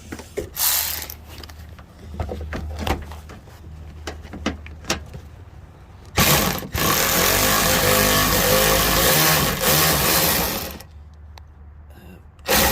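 Light clicks and taps of a socket tool on the fender bolts, then about six seconds in a cordless power tool runs steadily for about four and a half seconds before stopping, backing out the 10 mm bolts that hold the lower fender.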